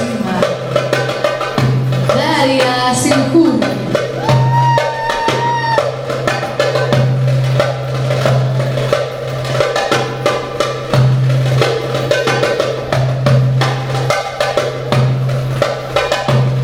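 Derbake (darbuka goblet drum) played in a fast solo improvisation: dense, rapid hand strokes with deep bass notes ringing out again and again.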